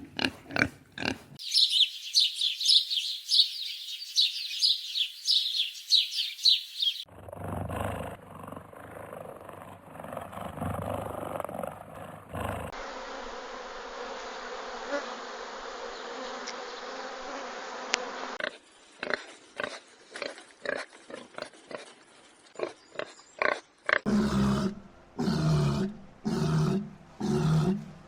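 A run of short clips of different animal calls, each cut off abruptly into the next. They include a rapid high-pitched chattering, low rough calls and, near the end, a series of deep pulsing grunts.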